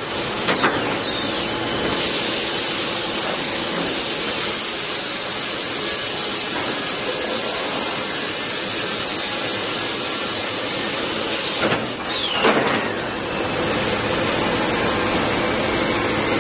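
Plywood double-sizing (DD) saw line running: saw motors and blades give a steady, dense whine and rush. The pitch sweeps sharply down twice, about half a second in and again about twelve seconds in.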